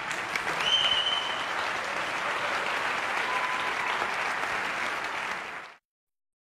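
Large audience applauding in an auditorium, a sustained, even patter of clapping that fades out to silence about a second before the end.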